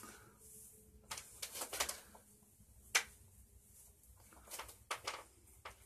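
Costume fairy wings being handled and fitted on: short rustles and light clicks, with one sharper click about three seconds in.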